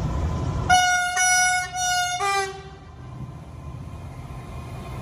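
Diesel freight locomotive's horn sounding several short blasts in quick succession, the last on a lower note and cutting off, about two and a half seconds in. The locomotive's engine runs under it with a low rumble that grows louder near the end as the train comes on.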